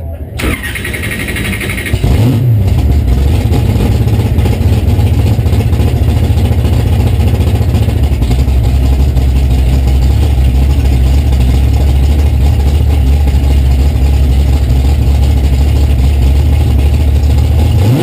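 Big-tire drag race car's engine started, heard from inside the car: it cranks briefly, catches about two seconds in, and settles into a loud, steady idle with a fast, rough pulsing.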